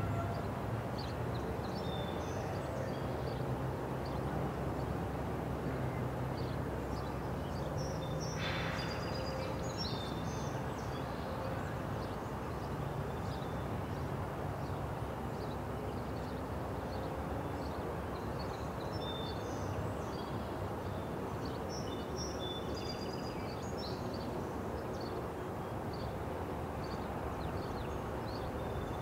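Diesel engine of a slowly approaching CN freight locomotive running, a steady low drone, with birds chirping throughout and a short hiss about eight seconds in.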